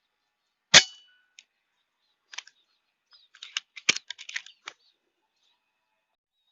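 A single sharp PCP air rifle shot with a brief metallic ring, followed from about two seconds later by a quick run of small clicks and rattles.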